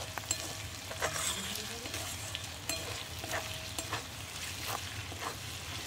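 Oyster meat and ginger-garlic paste sizzling in a metal kadai as they are sautéed. A metal spatula stirs and scrapes against the pan in short strokes about once a second.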